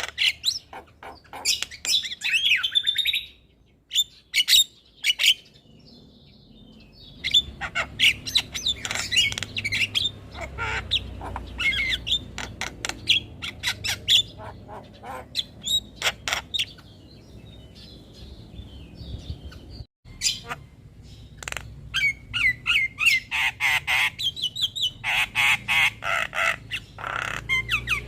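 Javan mynas calling: rapid bouts of sharp clicking calls and harsh squawks and chatter, broken by two short lulls.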